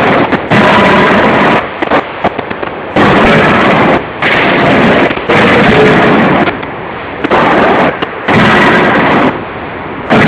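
CNC hydraulic die forging hammer working a forging, with loud spells of striking about a second long repeated every second or two and short quieter gaps between them. A few sharp clanks fall in one of the gaps.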